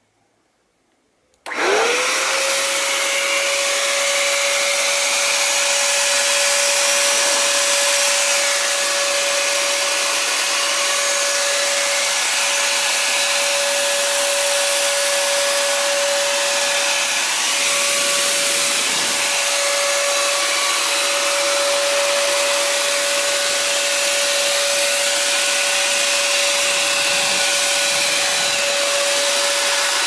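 Black & Decker VH780 780-watt handheld vacuum cleaner switched on as a blower about a second and a half in: its motor spins up in a quick rising whine, then runs steadily with a loud rush of air and a high whine.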